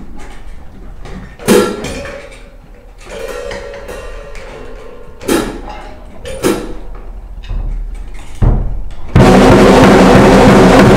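Acoustic drum kit: a few single drum strokes, each ringing briefly, a second or more apart, then about nine seconds in loud continuous playing of drums and cymbals begins.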